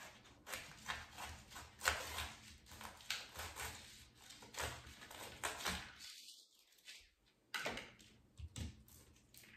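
A kitchen knife cutting cauliflower florets from the stem on a plastic cutting board: a string of irregular crunching cuts and taps on the board. Near the end, florets are pulled apart by hand. The sound drops out almost completely for about a second around six seconds in.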